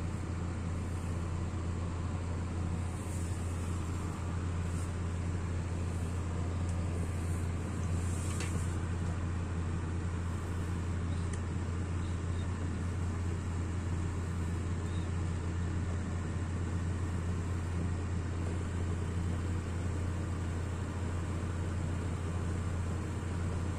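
Kerosene stove burning steadily: an even burner drone with a strong low hum, and a few faint ticks a few seconds in.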